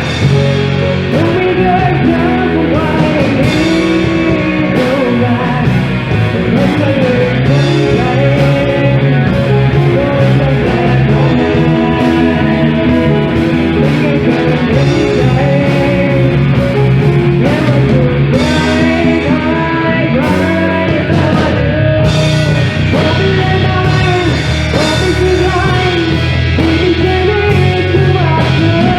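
A band playing a rock-style song with guitar and a singer's melody.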